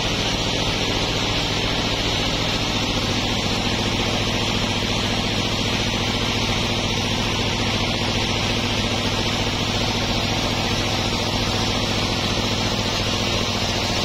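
Band sawmill running with a steady, even hum and hiss while its blade spins free, not yet cutting into the log.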